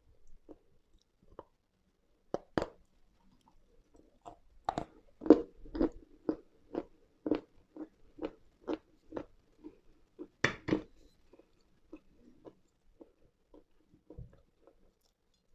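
Close-up chewing of a dry, crunchy edible mineral lump: a sharp bite about two and a half seconds in, then steady crunching at about two crunches a second, and another loud bite about ten seconds in before the chewing tails off.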